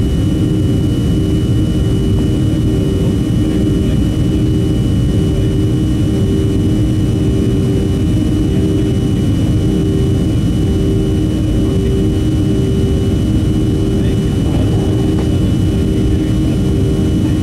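Cabin noise of a Boeing 737-300 climbing out just after takeoff, its CFM56-3 turbofan engines running at climb power. A steady loud rumble carries a hum that pulses about twice a second, over a faint steady high whine.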